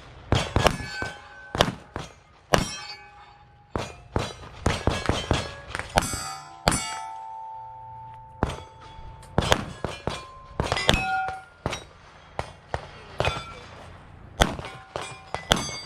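A fast string of pistol shots at steel targets, the plates ringing with a clang after hits. About seven seconds in the shooting breaks off briefly while one plate rings on, then the string resumes.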